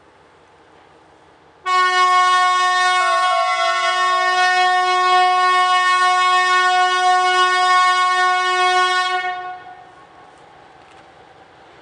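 Narrow-gauge diesel locomotive sounding its horn in one long blast of about eight seconds, starting suddenly a couple of seconds in and fading out near the end as the train approaches.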